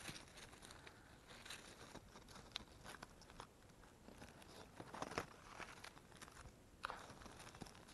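Dry fallen chestnut leaves and leaf litter crackling and rustling as a hand pushes them aside, in scattered short crackles, the loudest about five seconds in and again near seven seconds.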